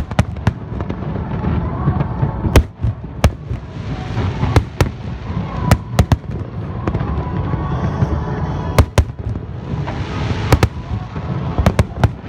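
Aerial fireworks display: shells bursting in many sharp bangs, several in quick pairs, over a continuous rumble and crackle of launches and bursts.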